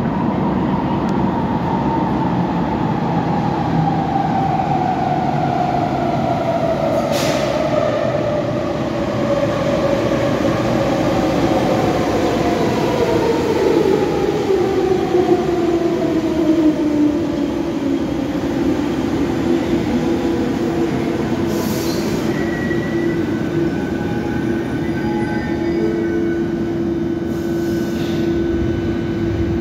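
Athens metro train pulling into an underground station over a continuous rumble. Its motor whine falls steadily in pitch as the train brakes, then settles into a steady hum as it slows alongside the platform. A few short high hisses sound along the way.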